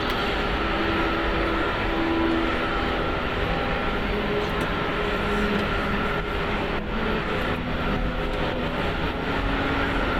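Steady noise inside an Airbus A380 cockpit while the airliner taxis: a constant hiss with a few faint steady hum tones running through it.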